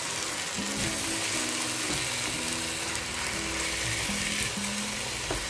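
Chicken pieces, onions and diced tomato sizzling steadily in an enamelled pot on the stove while a wooden spoon stirs them.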